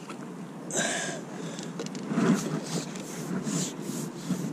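Short rubbing and scraping strokes, a few a second, as a landing-net handle is drawn in hand over hand, with a louder scrape about a second in.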